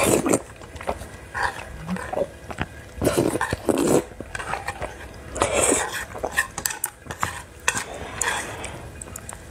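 Noodles in broth slurped up in several long, wet pulls, with chewing in between.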